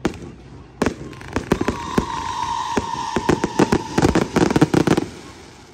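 Aerial fireworks going off in a rapid string of sharp bangs and crackles, with a slightly falling whistle over the middle. The bangs stop about five seconds in.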